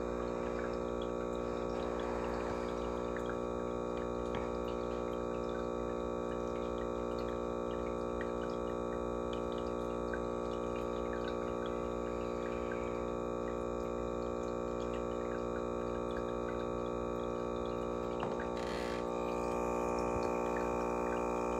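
Aquarium filter motor humming steadily, a cluster of constant tones, with faint water trickling and small ticks. It grows slightly louder after a brief rustle near the end.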